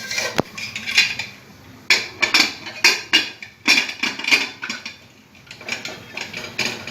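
Pressure cooker lid being fitted and locked onto the metal cooker: a series of irregular metal clanks and clicks.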